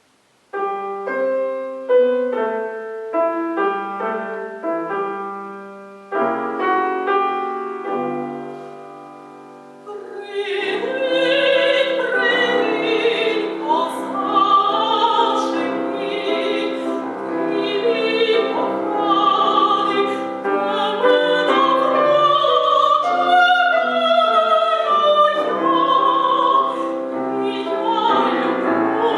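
A piano begins an introduction with separate struck chords, growing fuller about six seconds in. A soprano voice then enters with vibrato about ten seconds in and sings an opera aria over the piano accompaniment.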